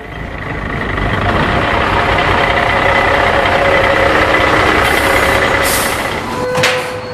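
Garbage truck engine running steadily, with two short hisses about five and six seconds in.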